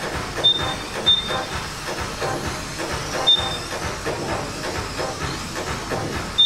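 Kyosho Mini-Z electric RC cars racing on a foam-mat track: a steady hiss of motors and tyres with many small clicks. Several short high beeps come from the lap-timing system as cars cross the timing line.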